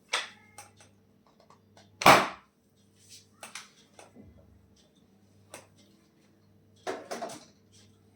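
Clicks, knocks and rustling from hands and body on a treatment table during a chiropractic adjustment, with one loud noisy burst about two seconds in and a shorter one near the end, over a steady electrical hum.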